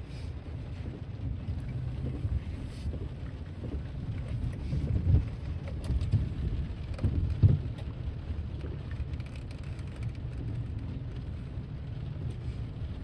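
BNSF freight grain train rolling past with a steady low rumble, picking up speed, with rain falling. There are a few louder thumps around the middle.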